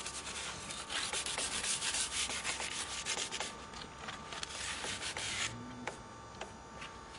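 Sandpaper rubbed quickly back and forth over a motorcycle handlebar grip, roughing up its surface. It stops suddenly about five and a half seconds in, and a few light ticks follow.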